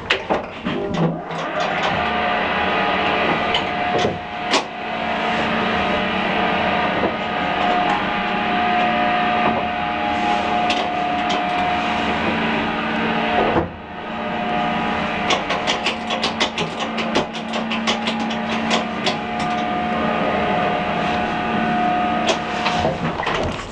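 Old 1920s–30s Express electric passenger lift running, with a steady motor whine and hum under frequent rattling clicks of the car and its fittings. The sound drops briefly about halfway through, then the whine and rattling carry on.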